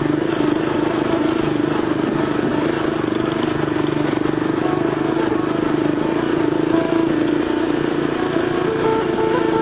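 Dirt bike engine running steadily as the bike is ridden along a track.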